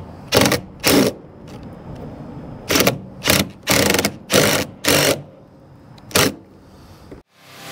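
Hand ratchet wrench worked in short strokes on a bolt: about eight quick bursts of clicking, irregularly spaced.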